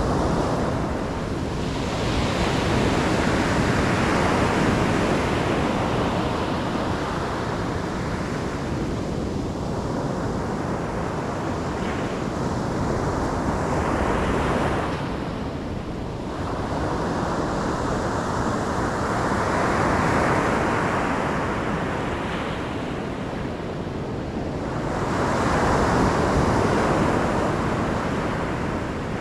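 Ocean surf: waves breaking and washing up the shore in a continuous rush, swelling louder about every six to ten seconds as each wave comes in and easing off between.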